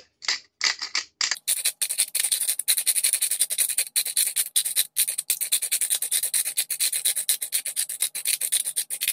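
Hand pepper mill grinding black peppercorns: a few short turns, then from about a second in a fast, continuous gritty rasping of rapid strokes.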